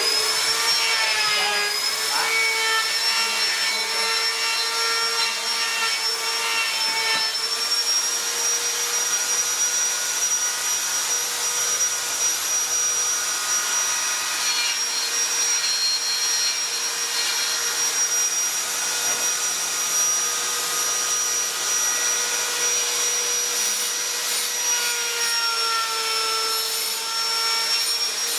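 An electric power tool's motor running steadily: a high, even whine over a hiss, its pitch wavering slightly.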